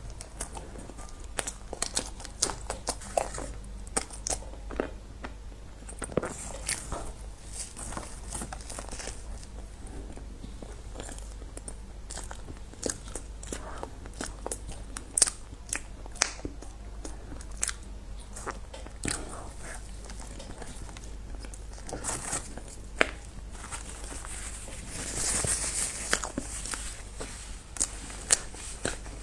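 Close-up eating sounds: crunchy bites and chewing, with many sharp crackling clicks, and a brief rustle near the end.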